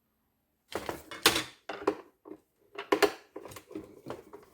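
Screwdriver and hands working screws out of a robot vacuum's plastic housing: a run of sharp plastic clicks and rattling knocks, starting after a short silence.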